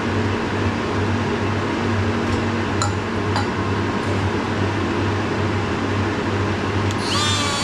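A steady mechanical hum of workshop machinery runs throughout, with a few light clinks. Near the end a die grinder spins up with a quickly rising whine that settles to a steady high pitch.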